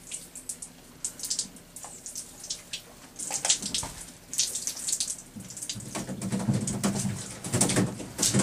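Water splashing and dripping in a run of quick slaps as hooked mackerel are reeled to the surface and lifted out of the water, heavier toward the end.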